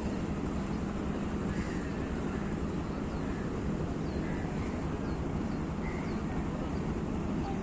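Steady low outdoor rumble and hiss with a faint continuous hum, and a few faint bird chirps scattered through it.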